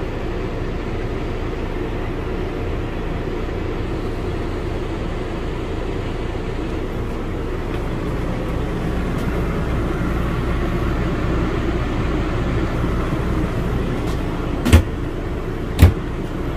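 Steady low mechanical drone, like a running motor or air-conditioning unit, with two sharp clicks about a second apart near the end.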